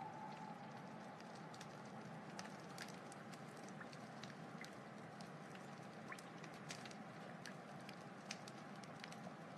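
Wood fire burning: a soft steady hiss with scattered small crackles and pops.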